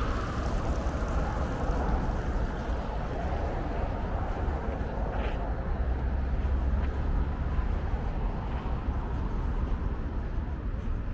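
Steady low rumble of passing road traffic, with wind buffeting the microphone.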